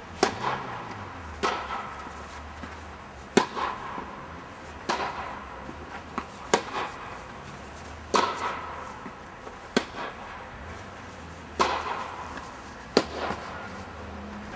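Tennis rally: a serve, then the ball struck by rackets and bouncing on the court, sharp pops about every second and a half, each echoing inside an inflatable air-dome hall.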